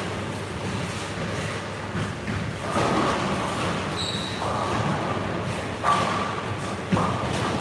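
Bowling-centre din: balls rolling and pins clattering on the lanes in overlapping swells, with a sharp thud about seven seconds in and a short high beep near four seconds in.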